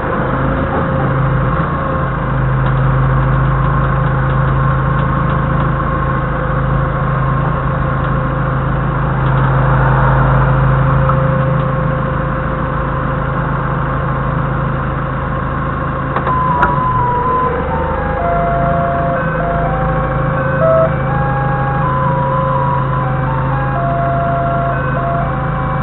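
Doosan 4.5-tonne forklift's engine running steadily as the forklift drives with a load on its forks. From about two-thirds of the way in, a simple electronic melody of stepped notes plays over it.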